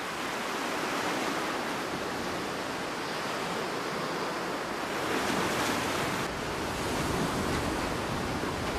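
Small sea waves washing onto a sandy beach: a steady surf hiss that swells a little about five seconds in.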